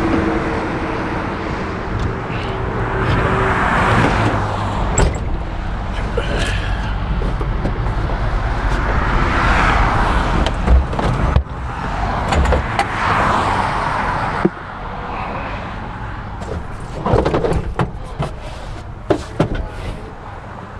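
Road traffic passing by, several vehicles swelling up and fading away in turn over a low engine rumble. Scattered clicks and knocks in the second half.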